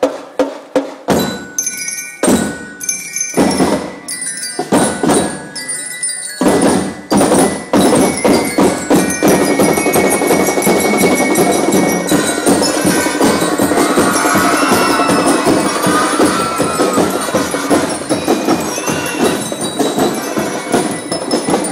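Marching band playing: a few separate drum strikes with short gaps for the first six seconds or so, then the full band comes in with a steady drumbeat and a melody on top.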